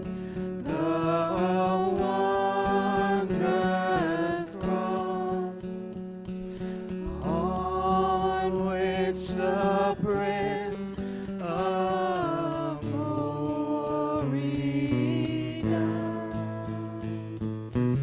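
Live worship song: singers with acoustic guitar accompaniment, the melody sung in long held notes with vibrato.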